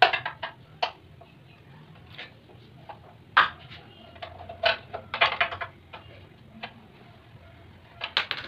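Hand tools, a screwdriver and a metal rod, clicking and tapping against the engine's metal parts: irregular sharp clicks, one louder knock about three seconds in and small clusters of quick clicks around five seconds and near the end.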